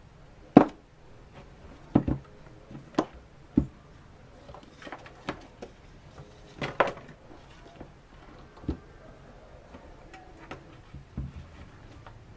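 Handling knocks from a black sheet-metal coin box frame and hand tools on a tiled tabletop: about a dozen separate, irregular knocks and clatters. The sharpest comes about half a second in.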